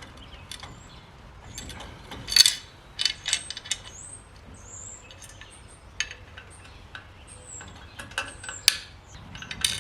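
Hand ratchet wrench clicking in short spells as a bolt on a boat winch mount is turned, with scattered metal clinks; one sharper knock about two and a half seconds in.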